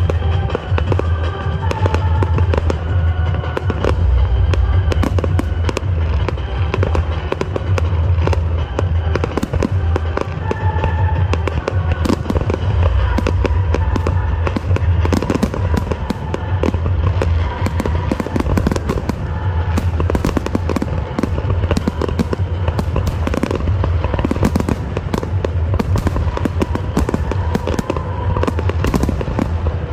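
Aerial fireworks bursting in quick succession: sharp bangs and crackling, growing denser after about twelve seconds, with music playing underneath.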